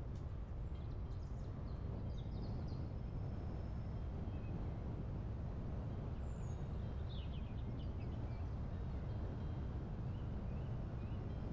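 Steady low wind noise with a few faint songbird chirps and trills, a cluster about a second in and another around six to eight seconds.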